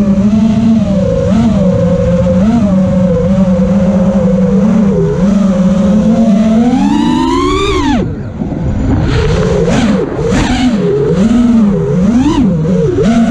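Motors and propellers of a 5-inch FPV quadcopter buzzing, the pitch following the throttle. About seven seconds in, the buzz climbs to a high whine, then drops off sharply as the throttle is cut. It comes back in quick rising and falling blips as the quad is steered in close to the building.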